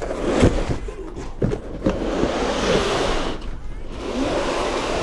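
A heavy cardboard box scraping as it is slid along a cargo van's wooden floor, with a few knocks in the first couple of seconds.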